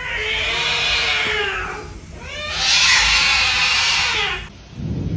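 Domestic cat yowling: two long, drawn-out meows, each rising then falling in pitch, the second louder.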